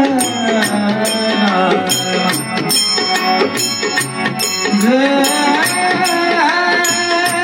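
Marathi devotional music: held, gliding sung notes over a sustained harmonium, with tabla keeping a steady beat.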